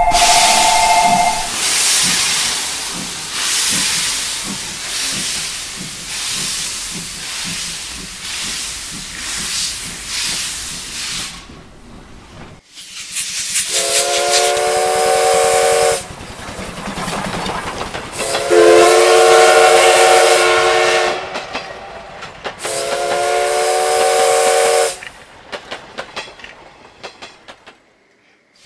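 Steam locomotive sound effects: hissing steam chuffing in a steady rhythm, then three long chime-whistle blasts of several notes at once. A run of light clicks follows near the end.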